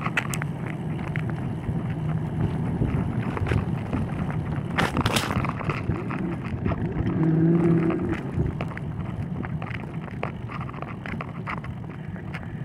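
Bicycle riding on wet asphalt: wind buffeting the microphone and tyres rolling on the pavement, with scattered clicks and rattles. A brief low hum swells about seven seconds in.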